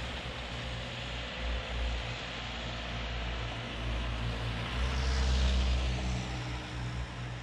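Road traffic on a wet street: a steady low engine rumble, with a car's engine and tyre hiss swelling as it passes about five seconds in.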